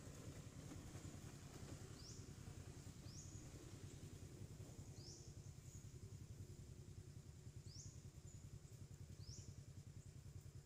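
Faint outdoor ambience: a bird repeats a short, high, upward-sweeping call every one to two seconds over a low steady rumble.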